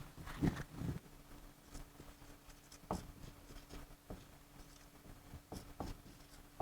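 Faint scratches and taps of a pen writing, scattered unevenly, over a steady low electrical hum.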